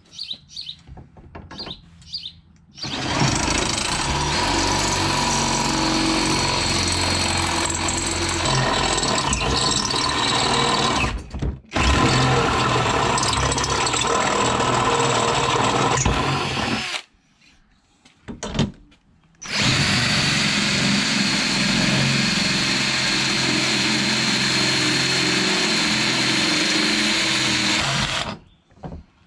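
DeWalt 18-volt cordless drill with a step drill bit boring out and widening holes in a metal seat rail and harness bracket. It runs steadily with a high whine, in three long spells of several seconds each with short pauses between.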